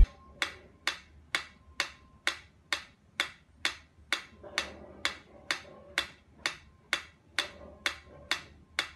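Mechanical pyramid metronome ticking at a steady tempo, about two ticks a second.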